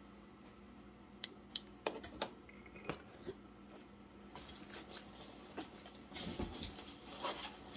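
Handling sounds: a few light clicks and knocks as a glass and a flashlight are set down, then rustling of packing material as the next wrapped piece is taken from the box, louder near the end.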